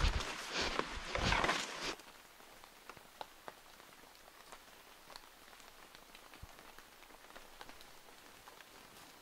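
Footsteps and brushing through leafy undergrowth, loud and irregular, stopping abruptly about two seconds in. After that, faint rain in the forest: a steady hiss with scattered drops ticking on leaves.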